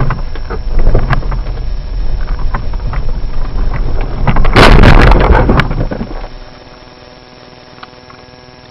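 Car crash caught on a dashcam: loud road and engine noise with knocks, then a loud impact crash about four and a half seconds in lasting about a second, after which the sound drops to a quiet steady hum.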